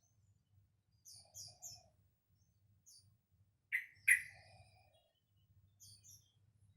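Young yellow-vented bulbul (trucukan) practising its song: short high chirps in small groups, with two louder, fuller notes about four seconds in.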